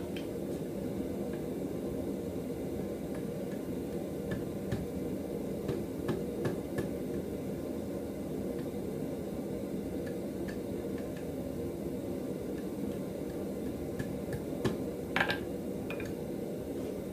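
Light metallic clicks and taps as a red-hot 3/16-inch steel bar is bent into an S hook around the anvil horn with a bending rod, with a sharper clink about fifteen seconds in. A steady low rumble runs underneath.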